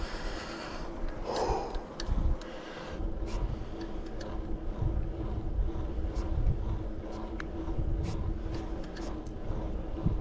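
Riding noise from a bicycle on the move, picked up by an action camera's microphone: a low wind rumble, scattered clicks and ticks, and a steady hum that sets in about two seconds in.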